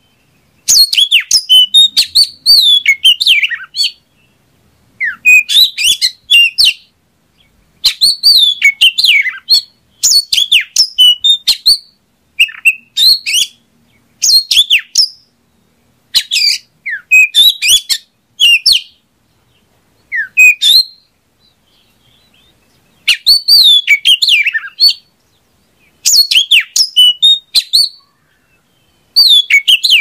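Oriental magpie-robin (kacer) singing: a run of high, rapidly varied song phrases, each about one to two seconds long, with short pauses between them.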